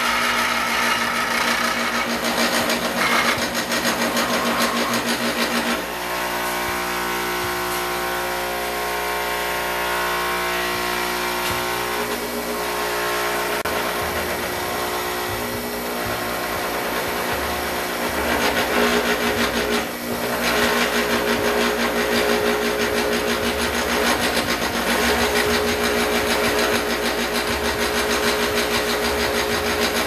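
Foley Belsaw Sharpall grinder running, its wheel grinding the steel wood chipper blades held in a sliding fixture. The grinding comes and goes, with the motor humming alone in between, about six seconds in.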